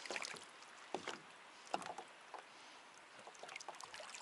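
Faint, scattered small splashes and water sloshing as hands hold a large fish in the river shallows and it stirs its tail before release.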